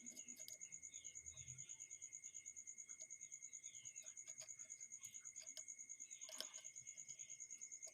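Faint, steady rapid trilling of crickets, with one short click about six seconds in.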